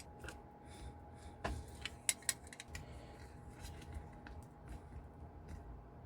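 Light clicks and ticks of small copper pieces being handled and bent by hand, with a few sharper clicks about two seconds in.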